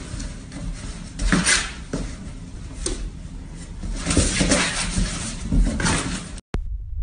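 Cardboard box rustling and scraping in several bursts as a cat claws its way up the side and drops inside. Near the end it cuts off and a low throbbing hum takes over.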